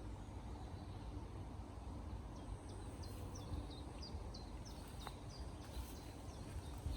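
A small bird chirping a quick series of short high notes for a few seconds in the middle, over a low steady outdoor rumble.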